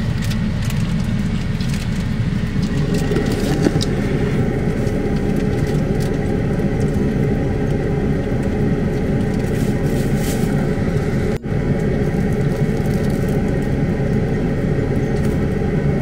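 Steady engine and road rumble heard inside a vehicle's cab while it is being driven, broken by an instant's dropout about eleven seconds in.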